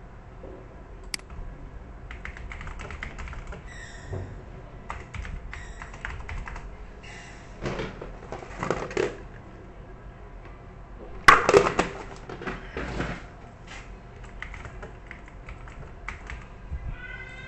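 Typing on a computer keyboard: irregular keystrokes and clicks, with a louder cluster of strokes about eleven seconds in. A few brief electronic tones sound among them.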